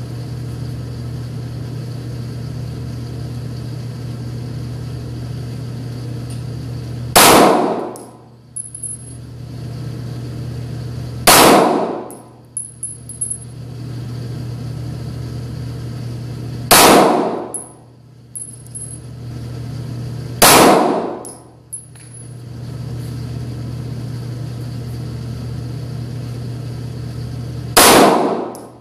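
Five single shots from a Taurus Millennium G2 Pro 9mm semi-automatic pistol, fired slowly several seconds apart, the first about seven seconds in and the last near the end. Each crack echoes briefly in the indoor range and is followed by faint high metallic pings of spent brass landing. A steady low hum runs underneath.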